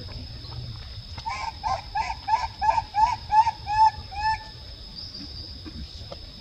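A run of about nine short, evenly spaced animal calls, about three a second, each with a slight downward bend at its end, over a faint steady high-pitched tone.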